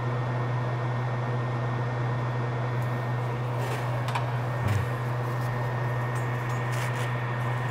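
Steady whir of a workbench fan with a low hum under it. A few light ticks and a soft bump come about four to five seconds in.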